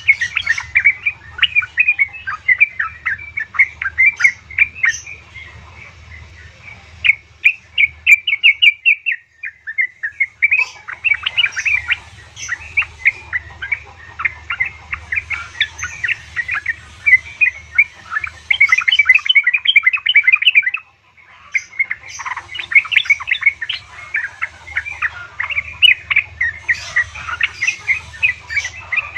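Sooty-headed bulbul (trucukan) chirping in fast, dense chattering runs, billed as a female calling to a male, with a short break about nine seconds in and another about twenty-one seconds in. A steady low hum runs underneath.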